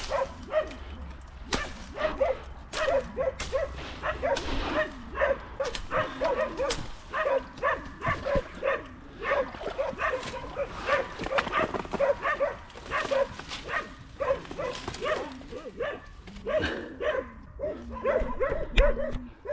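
Hunting dogs barking over and over, about two barks a second, baying at a wild boar hidden in thick cover. Dry brush and twigs crackle and snap close by.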